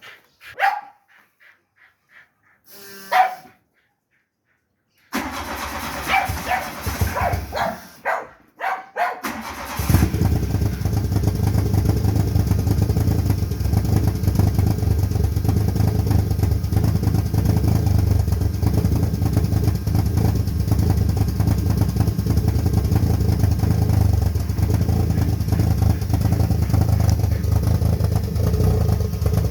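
Dogs barking a few times, then, about ten seconds in, the VW Citi Golf's four-cylinder engine settling into a steady, loud rough idle on a cold start.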